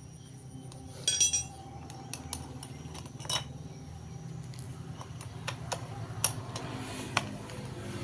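Small steel parts clinking and tapping as they are handled, with one bright ringing clink about a second in and scattered lighter taps, over a steady low hum.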